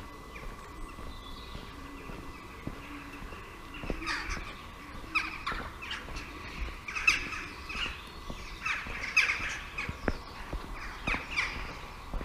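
Crows calling overhead: groups of short, harsh caws, beginning about four seconds in and repeating until near the end.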